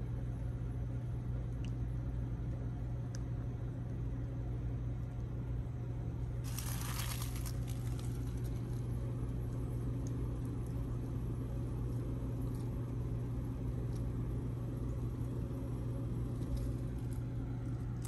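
A 2004 Goodman 3.5-ton packaged heat pump running in cooling mode: a steady low hum from the compressor and condenser fan. A short burst of hiss comes about six and a half seconds in.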